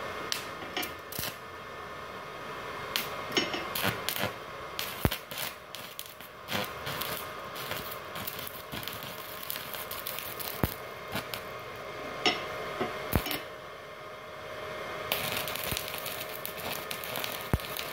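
Stick (arc) welding with a 4 mm electrode on a small 450-watt inverter welder, a rod thicker than the 3.2 mm that counts as this machine's maximum. Scattered sharp crackles and clicks as the arc strikes and sputters give way, about three seconds before the end, to a steadier crackling hiss as the arc holds.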